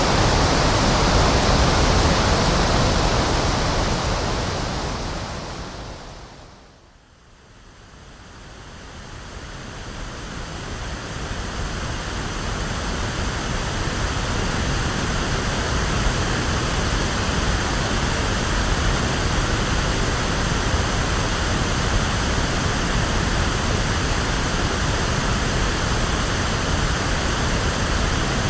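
Electronically generated pink noise: a steady, even hiss like rushing water. It fades down almost to quiet about seven seconds in, then swells back up over the following several seconds and holds steady again.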